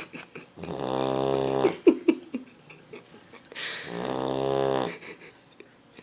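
Labrador puppy snoring loudly in its sleep, loud enough to be mistaken for a passing motorcycle. There are two long snores about three seconds apart, each about a second long, with a few short sputtering sounds just after the first.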